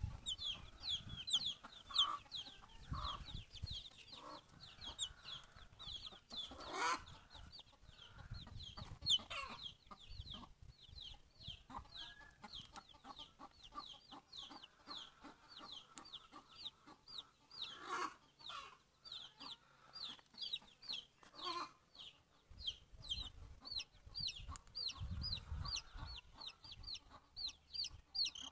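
Chicks peeping continuously: short, high chirps, each falling in pitch, several a second. A few louder, lower chicken calls come in, notably about 7 and 18 seconds in.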